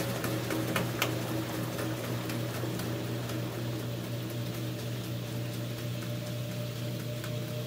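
LG Twin Wash Mini washer's drum spinning a load of clothes: a steady motor hum with a few light ticks in the first second.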